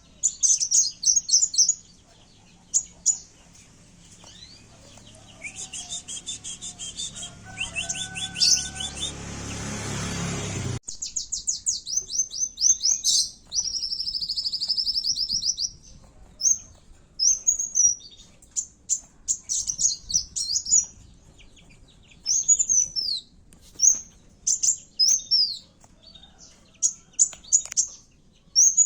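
Kowul (a sunbird) singing in quick phrases of high, sharp chirps and fast trills. For a few seconds before the middle, a fizzy, humming noise lies under the song and cuts off suddenly.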